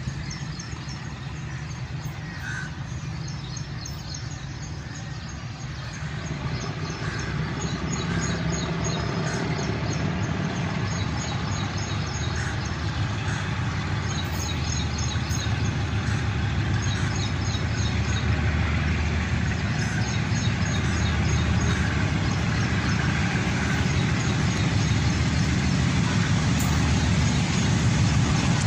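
Diesel locomotive hauling an express passenger train, its engine running under power as the train approaches. The low rumble grows steadily louder from about six seconds in.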